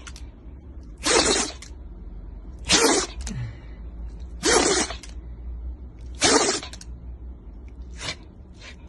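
Shiba Inu dog sneezing in a series: four sharp sneezes about a second and a half to two seconds apart, then two fainter ones near the end.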